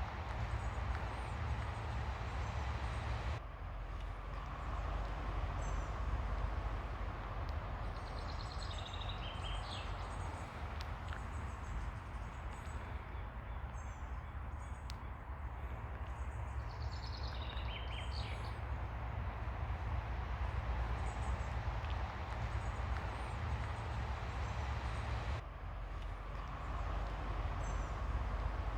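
Ocean waves washing on a beach in a steady rush, with birds chirping high over it and two short descending trilled calls, about a third and two-thirds of the way through.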